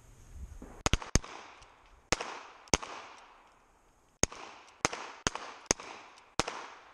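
Colt Python revolver and the other competitors' handguns firing a fast, uneven string of about nine sharp shots, each ringing out in an echo across the range.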